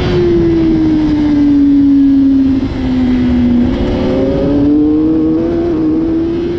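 2016 Kawasaki ZX-10R race bike's inline-four engine heard from onboard over wind rush. The engine note drops steadily as the bike slows into a corner, with a brief dip in level near the middle, then climbs again as it drives out of the corner under throttle.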